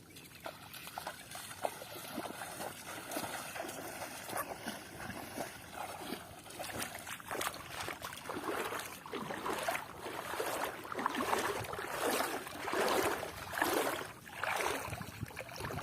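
Water sloshing and splashing in repeated surges roughly a second apart, growing louder in the second half.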